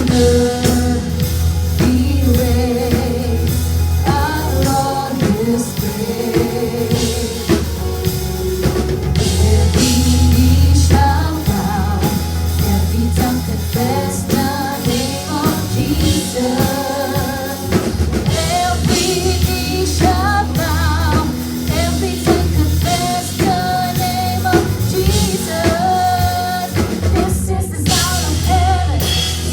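Contemporary worship band song: a voice singing a melody over drum kit, bass and a steady beat.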